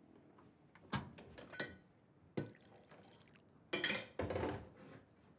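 Things being handled at a kitchen sink: three separate clinks and knocks in the first few seconds, then a short splash of running water about four seconds in.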